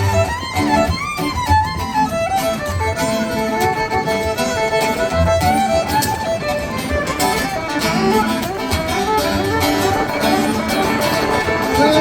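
Fiddle playing a melody over guitar accompaniment with a steady beat: an instrumental break in a song.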